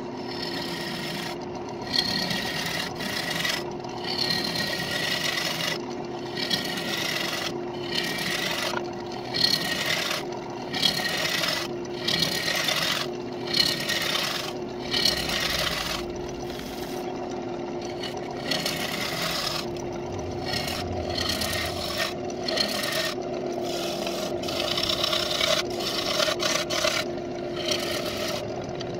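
Wood lathe running with a steady motor hum while a turning tool cuts the inside of a spinning walnut crotch bowl. The rough shaving sound of the cut breaks off for a moment many times as the tool is lifted and set in again for each pass.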